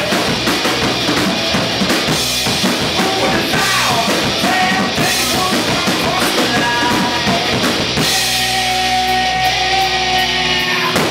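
Live rock band playing, with the drum kit to the fore over electric bass and guitar. About eight seconds in the drumming thins out and held bass and guitar notes carry on, with a hit near the end.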